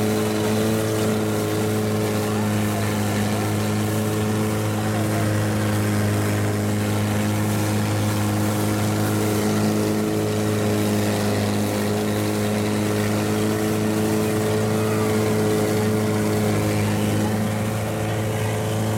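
Longtail boat's engine running steadily at cruising speed, an even drone with a strong low hum that holds its pitch, over a hiss of wind and water rushing past.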